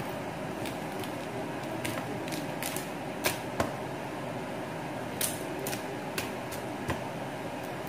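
Large kitchen knife cutting through crispy fried pork belly and knocking on a wooden cutting board: a scattering of sharp crunches and knocks, the two loudest close together about three seconds in.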